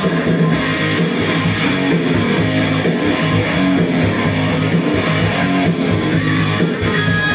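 Music with guitars playing prominently, loud and continuous.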